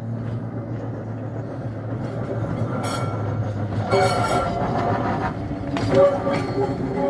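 Burton and Ashby Light Railways double-deck tram No. 14 running past on rails: a low steady rumble that grows louder as it nears, with sharp clicks of its wheels over the rail joints and a faint wheel squeal from about three seconds in.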